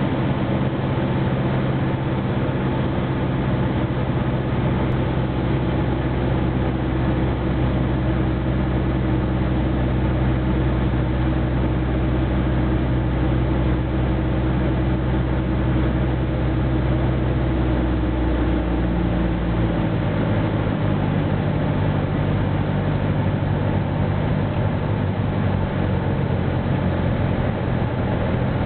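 Cessna 172's piston engine and propeller droning steadily, heard from inside the cockpit during the landing approach. About two-thirds of the way through, the engine note shifts and its deepest hum drops away.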